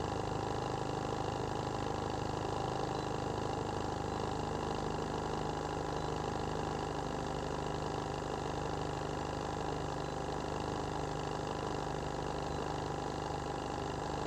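Toyota Vios's 2NZ-FE four-cylinder engine idling steadily. A scan points to a misfire on ignition coil number 1, although the engine runs well enough.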